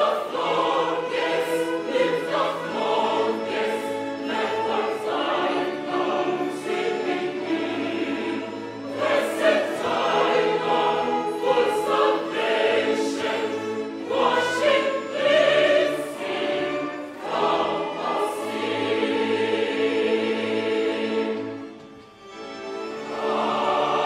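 Church choir singing a hymn in parts with violin accompaniment. The music drops away briefly near the end, then the choir comes back in full.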